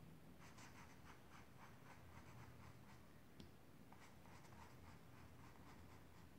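Faint strokes of a paintbrush spreading thinned fabric paint on denim, several strokes a second, with a brief pause about halfway.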